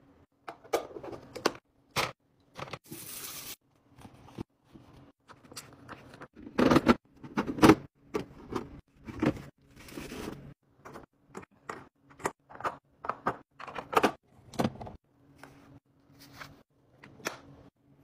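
Food and clear plastic storage containers being handled: a run of separate clicks, taps and knocks of plastic, with the loudest knocks in the middle.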